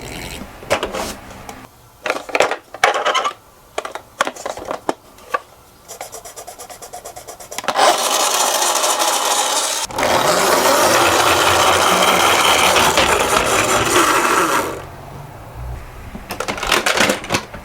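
Die-cast toy cars clicking and clattering against one another. From about eight seconds in there is a steady rolling noise, which drops away near the end.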